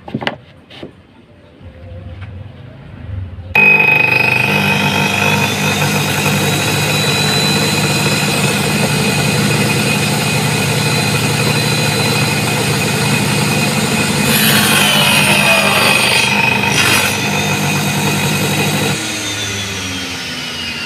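Angle-grinder motor of a homemade mini table saw switched on about three and a half seconds in, running with a steady high whine over a low hum. Around two-thirds of the way through, the blade cuts through a thin wooden strip, which disturbs the sound. Near the end the level drops.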